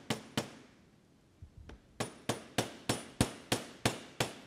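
Hammer tapping the countershaft bearing into a Harley-Davidson Sportster 4-speed transmission's trap door, metal on metal with a short ring after each blow. Two taps come first, then after a pause of about a second and a half a steady run of eight taps, about three a second.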